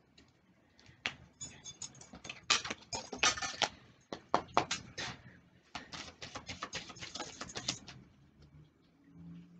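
A deck of oracle cards being shuffled by hand: quick runs of papery flicking and clicking, broken by short pauses about four and five and a half seconds in.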